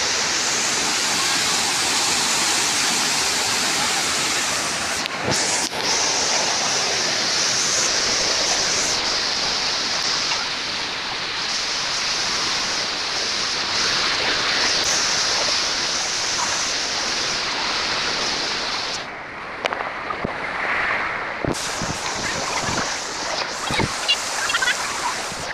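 Rushing water of a rocky stream and waterfall cascade: a steady, dense hiss that becomes quieter and duller about 19 seconds in.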